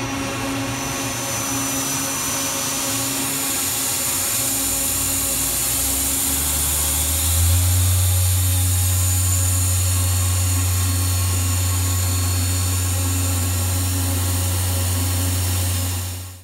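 1990s Nakamura-Tome TW-10 CNC lathe running, a steady mechanical hum and hiss. A low hum steps up in pitch three times around the middle and then holds, a little louder. The sound cuts off suddenly at the end.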